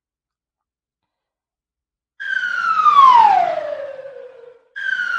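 A siren-like tone: after about two seconds of silence it comes in abruptly high and slides steadily down over about two seconds, then fades. It starts again, the same way, near the end.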